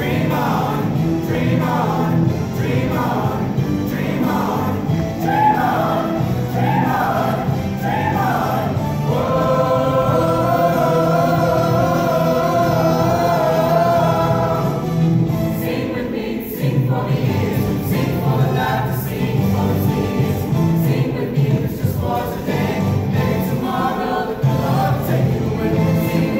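A choir singing, with one long chord held in the middle.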